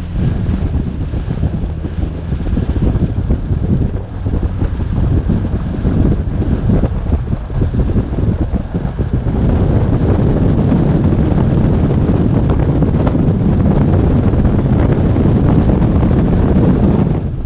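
Wind buffeting a windshield-mounted camera's microphone as an off-road vehicle drives a sandy dirt track, with the vehicle's running noise beneath. It gets louder about halfway through, as the vehicle picks up speed on a straight stretch.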